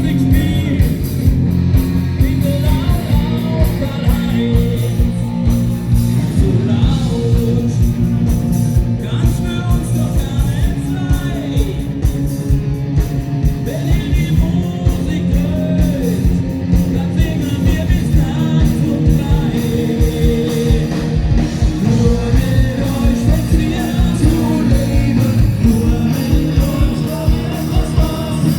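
Live band playing loud rock-style party music with a steady drum beat, guitar and singing.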